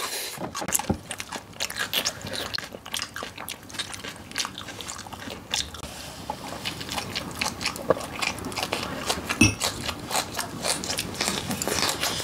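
Close-miked eating: crisp bites crunching and chewing, with many sharp crackles one after another. A single heavier thump about nine seconds in.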